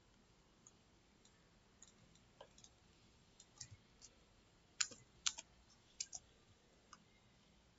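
Computer mouse clicks, quiet and scattered, the loudest coming in a quick cluster a little past the middle, over near-silent room tone.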